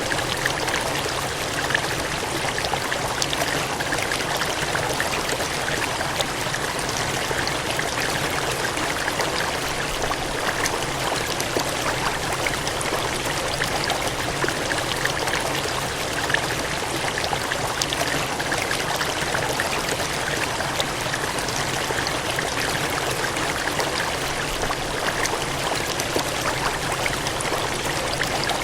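Gushing, cascading water running steadily, a continuous hiss with fine splashing flickers and no pauses.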